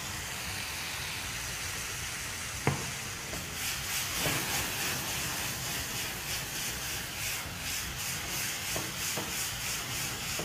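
Chicken, onion and capsicum frying in a wok over a gas flame: a steady sizzle, a single sharp knock a little under three seconds in, then a louder, crackling sizzle from about three and a half seconds on as vinegar hits the hot pan.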